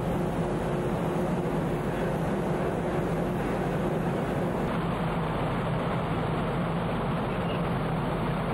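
Steady low drone of a car ferry's engines and machinery under a constant rush of wind on an open deck.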